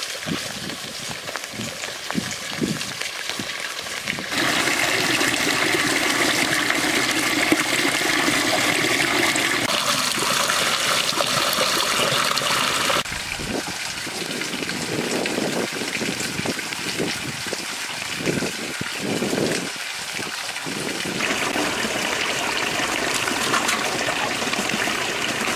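Water pouring from bamboo spouts and splashing into a cement-lined pond: a steady rush of water that gets louder abruptly about four seconds in and drops back around thirteen seconds.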